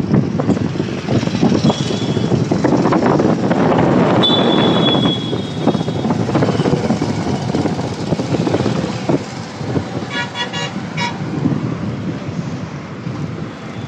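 Road traffic on a bridge: motorbikes and auto-rickshaws passing, with vehicle horns honking. A short high beep comes about 2 s in, a longer steady one from about 4 to 6 s, and a quick string of honks about 10 s in.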